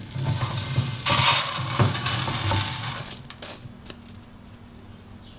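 Damp, freshly washed Japanese rice pouring and sliding out of a stainless mesh strainer into a rice cooker's inner pot: a rustling hiss for about three seconds, with a few light knocks of the strainer, the last near the end of the pour.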